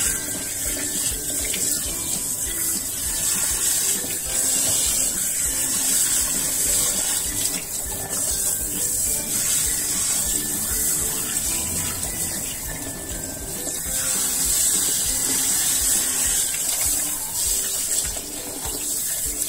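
Kitchen tap running steadily into a sink while a whole fish is rinsed and rubbed clean under it by hand, the water splashing over the fish and hands.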